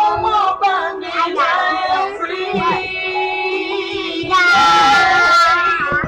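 Children singing along to music, with one long, loud held note about four and a half seconds in.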